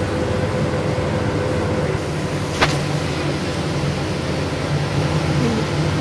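Electric fan on top of a homemade foam-box air cooler running steadily, a constant whoosh of air with a low hum. A single sharp click a little before halfway.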